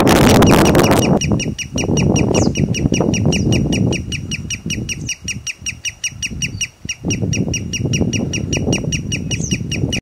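A sandpiper calling: a fast, steady run of short, sharp, high notes, about five a second, kept up for several seconds over a low rushing noise. The call begins about a second in, after a loud rush of noise.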